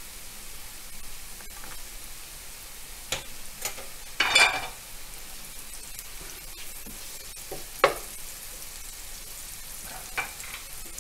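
Butter melting and sizzling in a wide enamelled pan of softened carrot and leek over medium heat, with a steady low sizzle. A few short scrapes and knocks of a spoon and wooden spoon against the pan, the longest about four seconds in.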